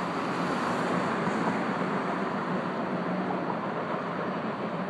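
Steady rush of distant road traffic.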